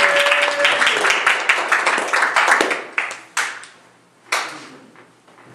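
Audience applauding a comedian coming on stage, with one long held cheer in the first second. The clapping thins out after about two and a half seconds, leaving a few last scattered claps.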